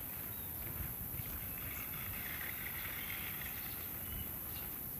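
Steady outdoor background noise: a low rumble with faint hiss and no distinct event.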